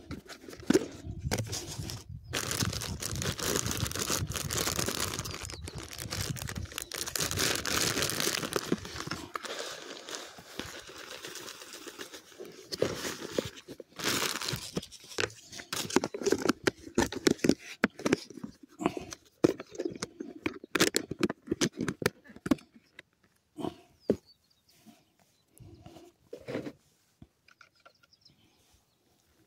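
A plastic bag rustling and crinkling in a bucket of carp bait, then a run of small clicks and knocks from handling the bait that thins out toward the end.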